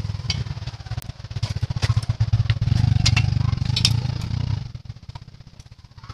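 A motorcycle engine running close by with a rapid low pulsing, growing louder about two seconds in and falling away near the end as it passes. Sharp metallic clicks of a socket wrench on the cylinder head bolts sound over it.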